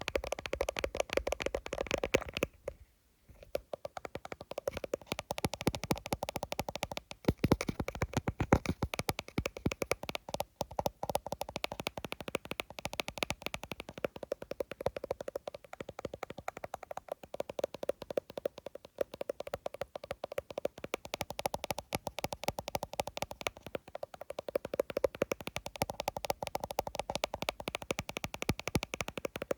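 Fast, continuous tapping of fingers on an iPhone, a dense run of quick clicks with a brief pause about three seconds in.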